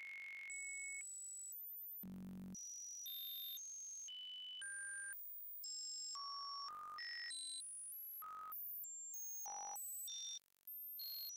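Synthesized sine tones, the signal that draws the Lissajous figures, jumping to a new random pitch about every half second. The pitches range from piercing high whistles to one low buzzy tone about two seconds in, with a brief silent gap near the end.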